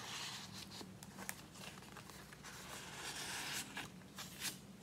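Cardstock cards and paper sliding and rustling as they are handled, with a few light taps.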